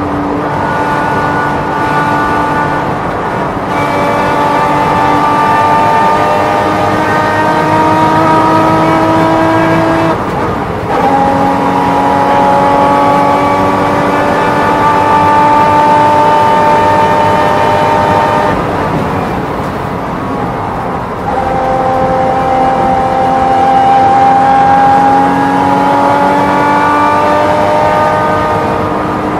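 Porsche race car's engine at full throttle, heard onboard, its note climbing steadily. About ten seconds in there is a short break and a drop in pitch, an upshift. Around nineteen seconds in it eases off for a couple of seconds, then pulls and climbs again.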